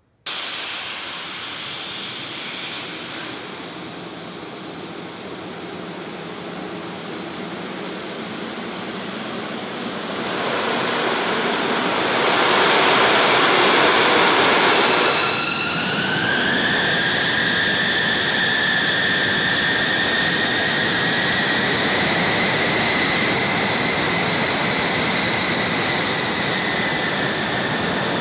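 B-2 Spirit stealth bomber's General Electric F118 turbofan jet engines running on the ground, a steady rush overlaid with a high whine. The rush swells loudest about halfway through, then a whine rises slowly in pitch and holds.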